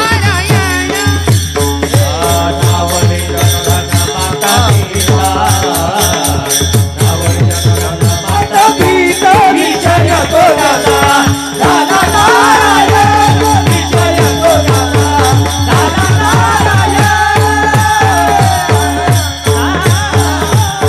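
Kirtan devotional music: a wavering melody over a steady held drone, driven by a fast, even beat of hand cymbals and drum.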